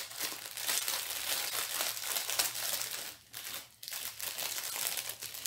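A small plastic packet crinkling and rustling as it is handled and opened to get the diamond painting tools out, with a short pause a bit past three seconds in.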